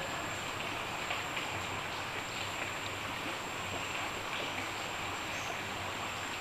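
Steady rush of muddy floodwater flowing along a drain.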